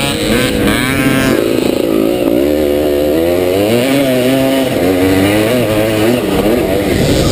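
1977 SWM 250RS single-cylinder two-stroke motocross engine running hard under race load, heard from on the bike. Its pitch rises and falls as the throttle is worked through the corners, with a quick climb in revs about a second in.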